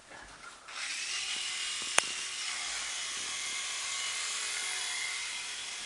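Small electric motor and rotor of a toy remote-control helicopter spinning up about a second in, then running with a steady high whirr; a single sharp click about two seconds in.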